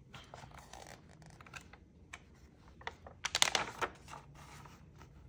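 Paper rustling and scraping as a picture-book page is turned by hand, with the loudest rustle of the turning page about three seconds in.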